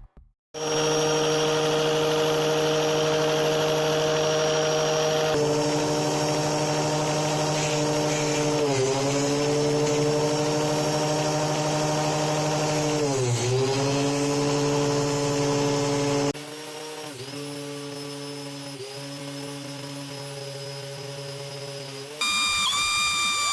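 Angle grinder with a sanding disc running at speed, a steady motor whine, as a plastic toothbrush is pressed into the disc. The pitch sags twice under the load, about 9 and 13 seconds in. The sound drops quieter about 16 seconds in, and a louder, higher whine takes over near the end.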